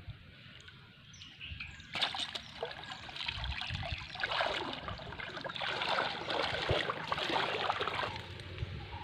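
Water sloshing, splashing and dripping as a cast net full of fish is hauled up out of shallow lake water. It starts about two seconds in, is loudest in the middle and eases near the end, with a few faint bird chirps before it.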